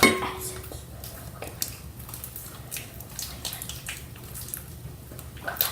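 Homemade glue-and-borax slime being kneaded by hand: soft wet squishing with scattered small sticky clicks and pops.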